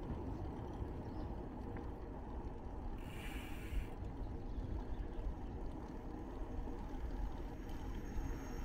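Low rumble of wind on the microphone with faint street noise from a moving bicycle, and a brief hiss about three seconds in.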